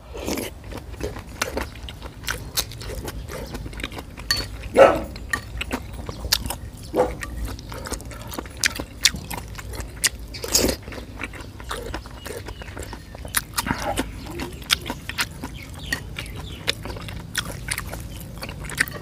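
Close-up eating sounds of a man chewing and slurping spoonfuls of pig's-blood salad with cooked offal. There are many small wet mouth clicks, with a few louder moments about five and ten seconds in.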